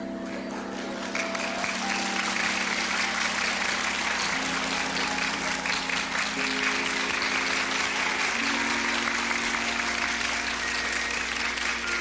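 Audience applause, starting about a second in, over a live stage orchestra playing slow held chords that shift every two seconds or so.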